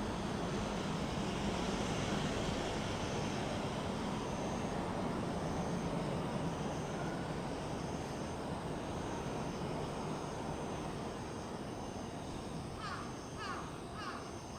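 Steady rumble of a passing vehicle, slowly fading away, with a series of short chirping calls near the end.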